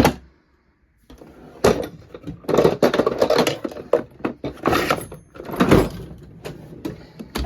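Hand tools clattering and rattling in a toolbox drawer as they are picked up and put down, opening with one sharp knock and followed by a run of knocks and rattling about a second later.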